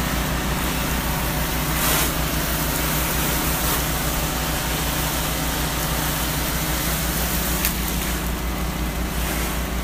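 Soft-wash sprayer rig running steadily at low pressure, about 150 psi: the motor-driven pump gives a low, even pulsing under the hiss of the chemical spray.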